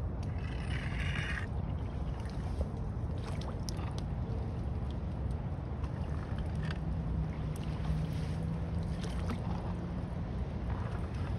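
Floodwater draining down a clogged storm drain, a steady low rush with scattered small splashes as a stick is poked through the leaves and debris over the drain.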